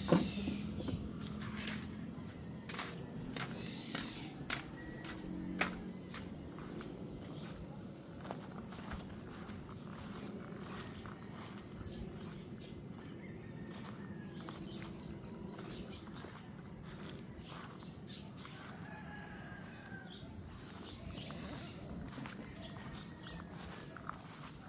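Farmyard ambience: insects trilling steadily, with short pulsed bursts of trilling every few seconds, while chickens cluck now and then. A few sharp knocks sound in the first few seconds, the loudest right at the start.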